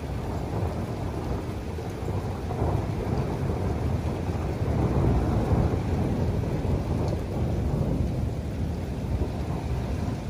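Steady rain with a long, low roll of thunder that swells to its loudest about halfway through and then eases.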